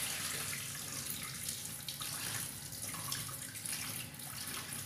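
Water running and splashing into a steel kitchen sink as soaked split urad dal is rinsed in a steel bowl, the water carrying off the loosened black husks.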